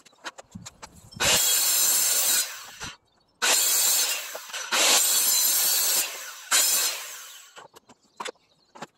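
Corded circular saw cutting through a 2x4 board in several loud runs with short breaks, winding down near the end. Light knocks from handling the wood before and after the cut.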